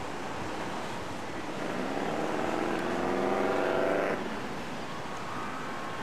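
A heavy fire truck's engine revving up, its pitch rising for a couple of seconds and then breaking off sharply about four seconds in, over a steady background hiss.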